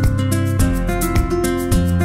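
Background music with a steady beat and sustained notes.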